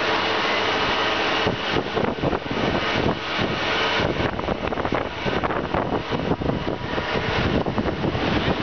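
Loud, steady machinery noise of a steel-cutting shed, a hum and hiss with no clear tone, turning uneven and fluttering from about a second and a half in.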